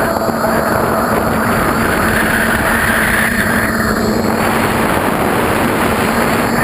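DeadCat quadcopter's electric motors and propellers whining steadily over a dense rush of noise, heard from the onboard camera. The pitch climbs a couple of seconds in and falls back a little after four seconds, following the throttle.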